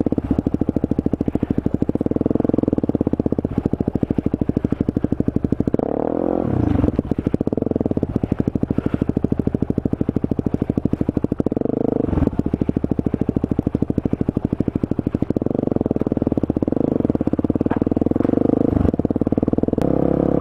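Supermoto motorcycle engine running under way. The revs drop and pick up again about six seconds in and again around twelve seconds, as with gear changes.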